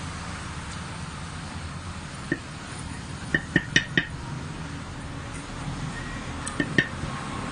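Light clinks of tableware, seven short ringing taps: one early, a quick run of four in the middle and two more near the end, over a steady low hum.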